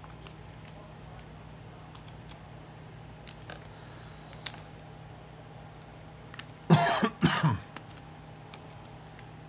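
A man coughs twice in quick succession, about seven seconds in, over a low steady hum. A few faint clicks come before it.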